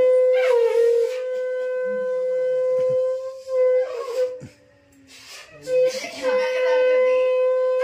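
Conch shell (shankha) blown in two long, steady blasts on one pitch: the first lasts about three and a half seconds, the second starts after a short break and is still sounding at the end. This is the ritual conch blowing of a Bengali blessing ceremony, with a few voices over it.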